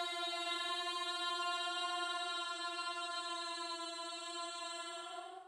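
Ghostly crying horror sound effect: one long held wailing tone, voice-like, sinking slightly in pitch and slowly fading before cutting off near the end.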